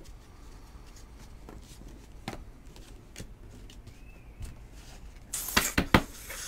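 A stack of 2019 Donruss Elite football cards being handled and thumbed through, with faint soft flicks and clicks as the cards slide over one another. About five and a half seconds in there is a quick run of louder snaps as cards are flicked and squared in the hand.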